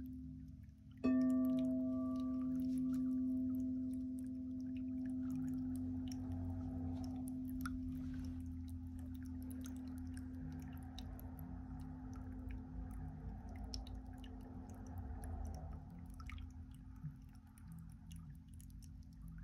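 A single struck metal tone rings out about a second in: one low steady pitch with a few fainter higher overtones, dying away slowly. Underneath, a small tabletop fountain trickles faintly with scattered drips.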